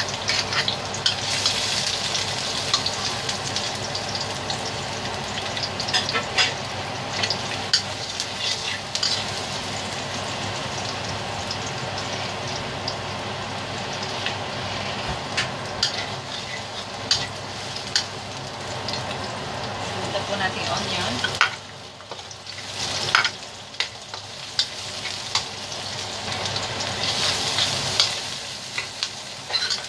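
Chopped garlic sizzling in hot oil in a metal wok, with a metal ladle scraping and clinking against the wok as it stirs. The sizzle drops briefly about two-thirds through, then picks up again.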